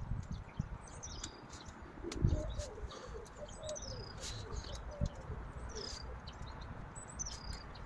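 Birds calling: about four short, high whistles that each fall in pitch, with a lower wavering call in the middle.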